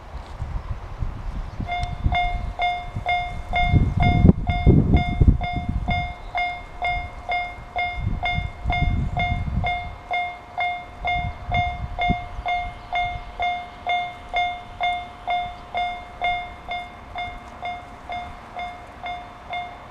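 Japanese railway level-crossing alarm, the JR standard electronic single tone, starting about two seconds in and dinging steadily about twice a second at one pitch. A low rumble runs under it through the first half and is loudest around four to five seconds in.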